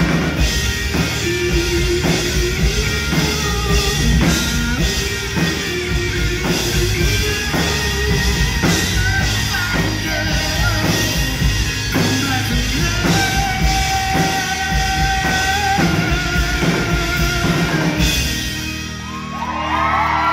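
Live rock band playing, with a male lead vocal over electric guitar and drum kit. The band drops back briefly near the end before guitar notes ring out.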